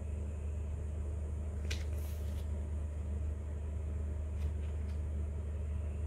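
Steady low hum of room tone, with a few faint clicks about two seconds in and again later on.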